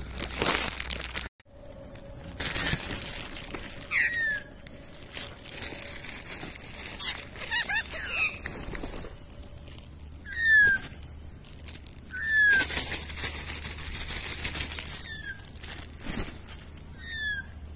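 Australian brush-turkeys flapping their wings and scuffling on grass in bursts every few seconds. Between the flaps comes a bird's short, downward-sliding whistled call, repeated about five times.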